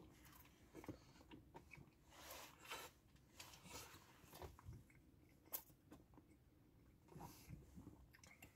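Faint chewing of a mouthful of chicken wrap, with small wet mouth clicks and soft bursts, and one sharper click about five and a half seconds in.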